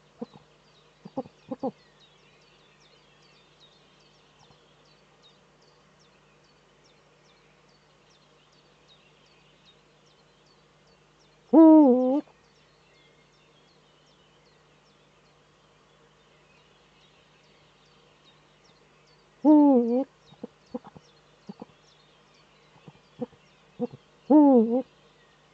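Male Eurasian eagle-owl giving courtship calls: three deep calls of about half a second each, bending up and down in pitch, the first about halfway through and two more near the end, with a few short soft clicks between them.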